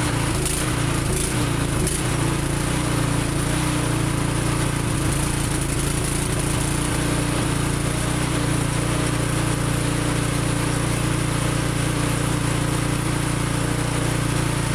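Troy-Bilt Storm Tracker 2690 XP two-stage snow thrower's engine running steadily with an even, quiet purr.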